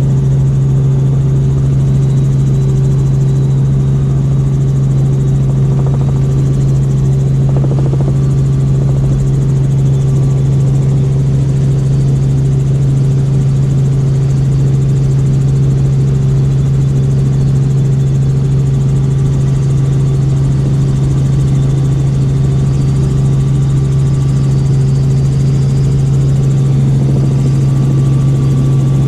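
Helicopter in flight heard from inside the cabin: the rotor and engine running steadily as a loud, even low hum that does not change.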